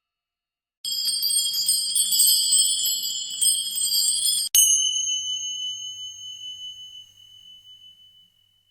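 A high-pitched metal bell rung rapidly for about four seconds, with many quick overlapping strikes. Then a single sharp strike on a bell that rings one clear high tone and fades away over about four seconds.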